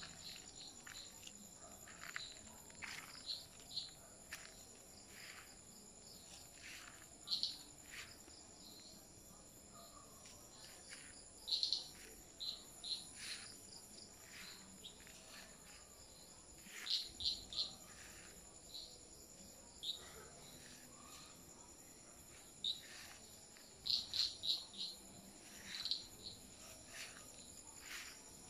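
Night insects such as crickets keeping up a steady, high trill. Short chirps come every few seconds, sometimes in quick runs of three or four.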